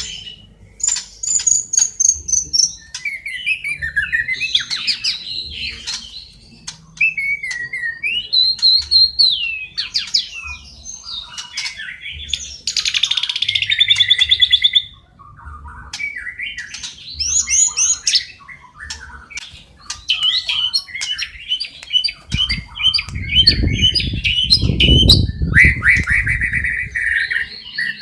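Songbird training recording: a white-rumped shama's varied song of whistles, slurred glides and rapid trills, mixed with quick chirping from smaller birds such as fighting house sparrows. A low rumble rises under the song for a few seconds near the end.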